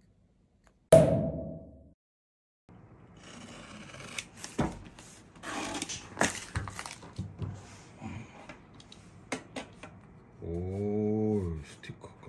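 A sudden loud hit about a second in that rings out for about a second. Then several seconds of scraping, rustling and clicks as a taped cardboard parcel is handled and cut open. Near the end comes a short hum that rises and falls in pitch.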